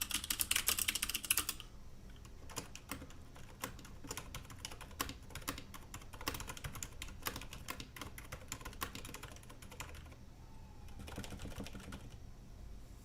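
Typing on mechanical keyboards: loud, clacky keystrokes for about the first second and a half, then much quieter typing on the MK Fission's Cherry MX Silent switches, whose dampened strokes still click faintly.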